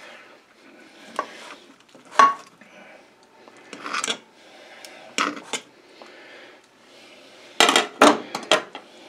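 Kitchen knife cutting a piece off a smoked turkey breast on a dinner plate, the blade scraping and clinking against the plate in scattered strokes, with the loudest clatter near the end.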